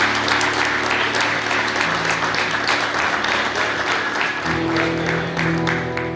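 Applause and hand clapping over a live band's held notes; about four and a half seconds in, the band strikes a new sustained chord.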